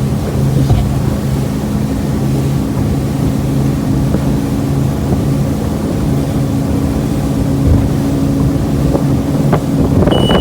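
Motorboat engine running at a steady speed, its even hum holding throughout, with wind buffeting the microphone.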